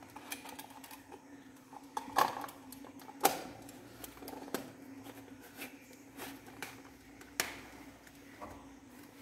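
Sharp plastic clicks and light knocks from a handheld plastic torch as its head is twisted and turned in the hand, the loudest about two and three seconds in, over a steady low hum.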